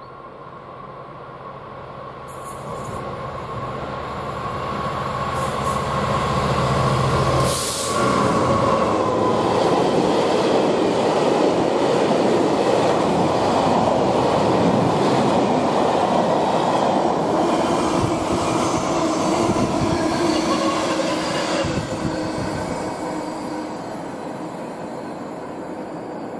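A train passes at speed on the main line. Its wheel and rail noise rises as it approaches and jumps sharply as the front goes by. A sustained loud rush lasts about fourteen seconds as the train runs past, then fades away. A steady high whine drops slightly in pitch as it passes.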